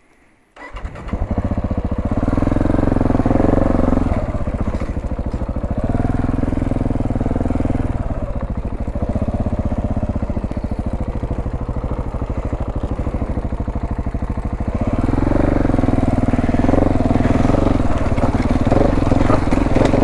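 KTM 690 Enduro R's single-cylinder engine running as the bike rides a dirt trail, setting in about half a second in and rising and falling with the throttle. It is louder around two to four seconds in, again around six to eight seconds, and over the last five seconds.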